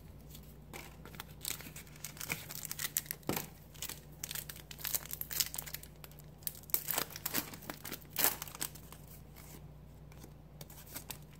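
A Pokémon trading card booster pack's foil wrapper being torn open and crinkled, with irregular crackles and rustles throughout, over a steady low hum.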